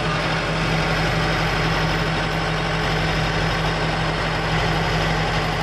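Heavy forestry machine's diesel engine running steadily at an even pitch, heard close up from on board.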